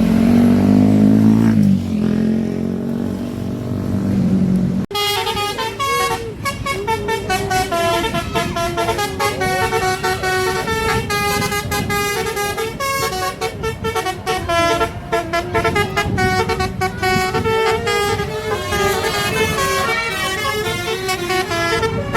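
Bus 'telolet basuri' melody horn playing a fast tune of short stepped notes at several pitches. Before it, a deeper pitched horn-like sound drops in pitch about two seconds in and is cut off abruptly.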